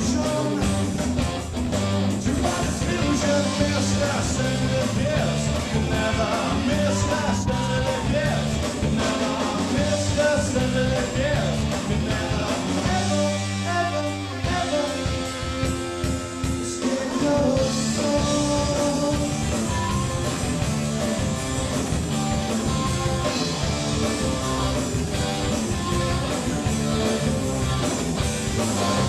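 Rock band playing a song with electric guitar, bass, drums and singing. About halfway through the drums and bass drop out for a few seconds, leaving a thinner passage, then the full band comes back in.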